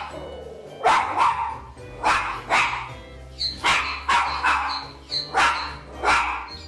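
A dog barking repeatedly: about ten sharp barks, often in quick pairs.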